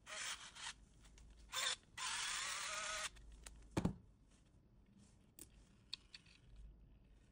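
Small cordless electric screwdriver running in short bursts, the longest about a second starting about two seconds in, as it drives a screw into a plastic camera mounting plate. A knock follows, then light clicks of the plastic plate being handled.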